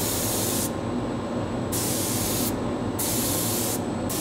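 Gravity-feed spray gun spraying Cerakote: a hiss of air and coating that starts and stops sharply as the trigger is pulled fully on and fully off, about four short passes. A steady low rumble runs underneath.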